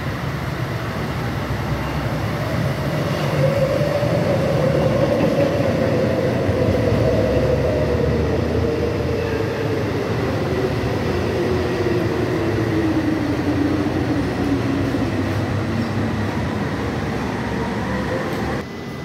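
An electric metro train passing by on the track: a rumble that builds over the first few seconds, with a whine that slides steadily down in pitch as the train goes past and away. The sound drops off suddenly near the end.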